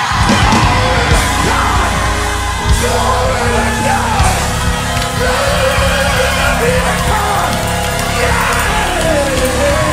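Gospel choir singing full-voiced with live band accompaniment: many voices over a heavy, steady bass, with a few sharp drum-like hits.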